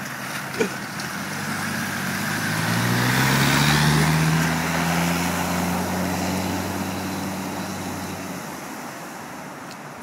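Land Rover Defender accelerating away through deep flood water: the engine note rises as it speeds up, then holds and fades into the distance. A loud rush of spray peaks as the wheels plough through the water.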